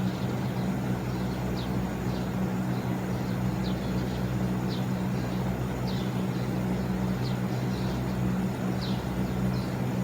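TECO MS-LV36IH inverter air conditioner running with a steady low hum from its fan. Faint, short high chirps come about once a second over the hum.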